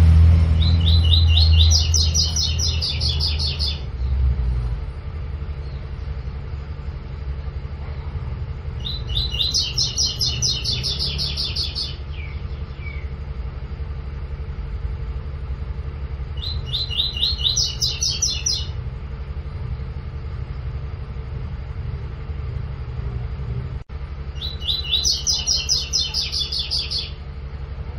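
Double-collared seedeater (coleiro) singing its 'tui-tui' song, four phrases, each a fast run of repeated high notes lasting two to three seconds, with pauses of several seconds between them. A steady low rumble runs underneath.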